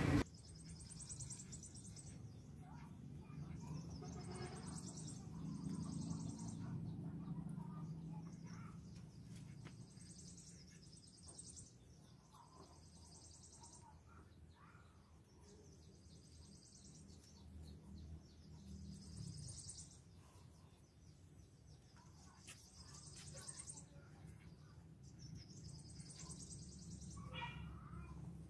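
Faint outdoor ambience: a high, buzzy trill from a bird or insect repeats every few seconds, each about a second long, over a low hum, with a few soft ticks of a knife slicing bamboo shoots on a banana leaf.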